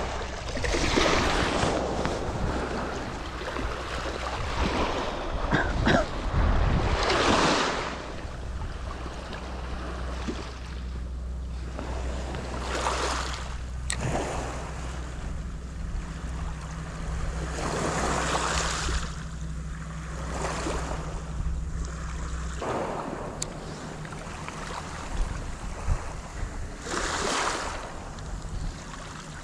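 Small sea waves washing onto the shore, swelling every few seconds, with wind rumbling on the microphone.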